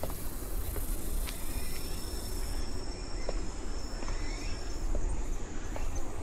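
Insects chirring in the vegetation, with one steady high trill from about a second in to about five seconds in, over a constant low rumble and a few faint light ticks.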